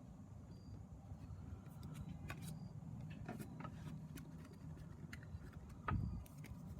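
Pokémon trading cards handled, with a few faint clicks and a soft thump about six seconds in, over a low steady hum.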